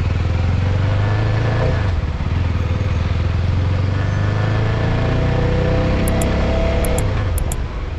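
CFMoto 250NK's single-cylinder engine running while riding, over a steady rush of noise. The engine note dips briefly about two seconds in, then rises slowly through the second half.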